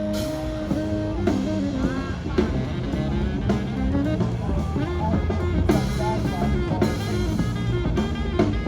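Background music with drums, bass and guitar and a steady beat.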